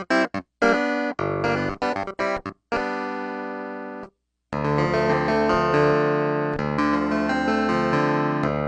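Clavinet played dry, with no effects: short, clipped notes and chords for about four seconds, a brief break of silence, then denser chord playing with the notes held longer.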